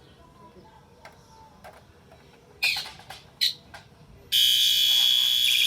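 Two short knocks, then about four seconds in a fire alarm starts sounding a steady, buzzy continuous tone on its low-volume setting.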